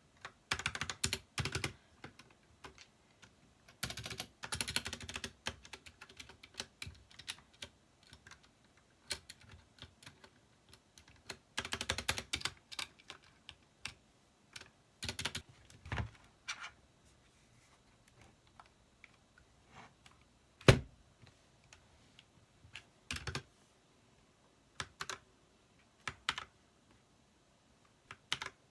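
Typing on an Ajazz mechanical keyboard fitted with cherry blossom keycaps: quick bursts of key clicks separated by pauses, with one louder single keystroke about two-thirds of the way through.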